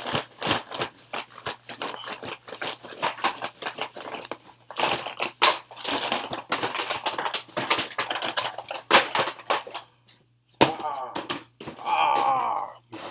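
COVID-19 rapid antigen test kit boxes and packets being handled: a dense run of clicks, taps and rustles, with a short pause and then a longer, fuller rustle near the end.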